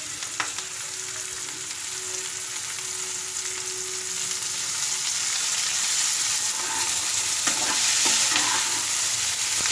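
Onions, green chillies and coriander leaves sizzling in oil in a kadai while being stirred, the sizzle growing a little louder, with a few scrapes of the spoon in the second half.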